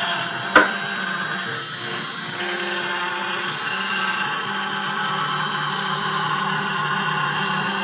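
CNC router spindle running at roughly 8,000 to 10,000 rpm and milling a plastic board: a steady cutting noise with held tones. A single sharp knock comes about half a second in.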